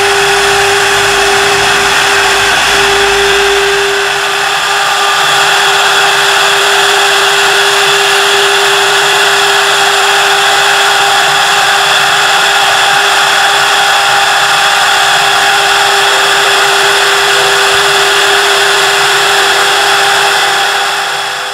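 Double-spindle CNC wood-turning and carving lathe running: the carving spindles give a steady high whine over the hiss of wood being cut as a stair baluster is turned. The sound dips briefly about four seconds in, then carries on evenly.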